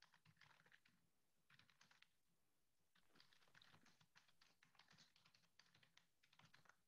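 Near silence, with faint typing on a computer keyboard in several short runs of quick clicks.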